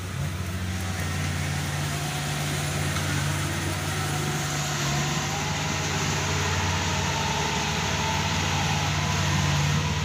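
Kubota rice combine harvester's diesel engine running steadily at a constant speed, getting slowly louder as the machine comes closer.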